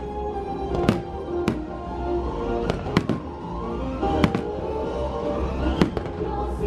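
Aerial fireworks shells bursting in the sky, about half a dozen sharp bangs spaced a second or so apart, over the fireworks show's soundtrack music playing steadily.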